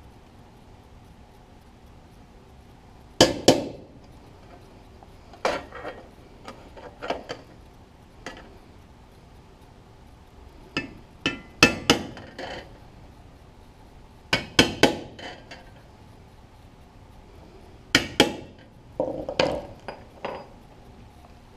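Small hammer lightly tapping a metal punch against sheet metal to dent divots at the marked hole spots: sharp metallic taps in small groups of one to three, with pauses of a second or two between groups.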